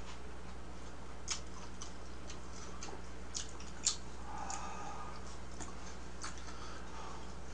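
Quiet eating sounds: a spoon scooping mung bean porridge from a plastic container, with a handful of light, sharp clicks scattered over a steady low hum.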